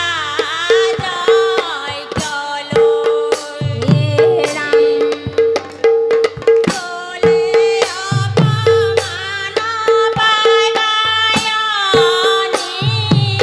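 A women's chorus singing a devotional song in unison to hand-clapping and a barrel drum beating a steady rhythm, with a deep bass stroke from the drum every few seconds.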